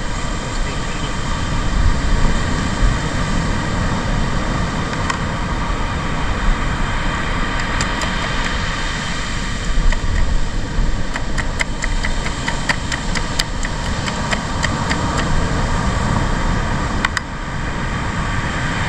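Steady rush of beach surf and wind noise on the microphone, with a run of small, sharp clicks and taps about halfway through.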